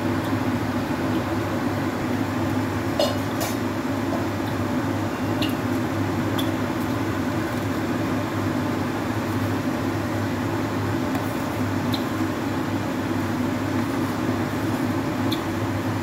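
Steady kitchen hum with a few light clinks of a spoon against a stainless-steel pot as boiling tomato rice is stirred.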